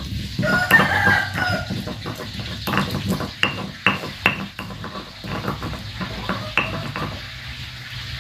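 Stone pestle rubbing and knocking on a stone mortar (cobek and ulekan) as red chilies are crushed for sambal, with a run of sharp knocks through the middle. A rooster crows once about half a second in.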